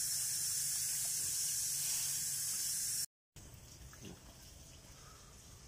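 Water pouring from a hose onto a bundle of lemongrass stalks held under it, a steady splashing hiss that cuts off abruptly about three seconds in. After that only a much quieter outdoor background with a few faint ticks.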